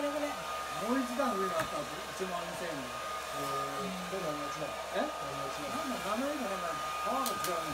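Hair dryer running steadily: an even blowing hiss with a constant high motor whine. A person's voice rises and falls in pitch over it.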